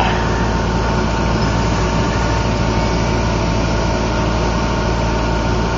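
A running motor holding a steady hum: several constant tones over a hiss, unchanging throughout.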